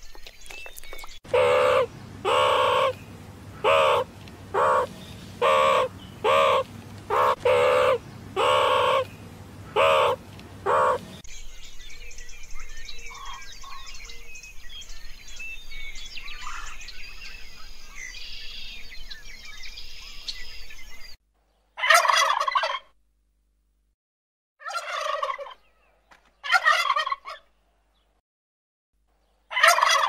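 Turkeys gobbling: four separate gobbles in the last third, with silence between them. Earlier comes a run of about ten short, evenly spaced calls over a low hum, followed by quieter background sound.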